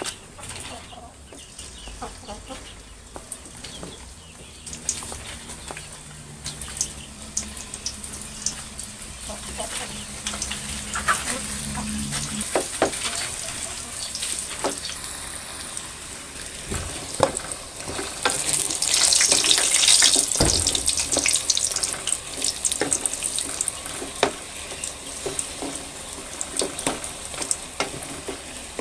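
Pieces of banana frying in hot oil in a pan: a steady sizzle with frequent clicks and scrapes of a utensil stirring, the sizzle swelling louder about two-thirds of the way through.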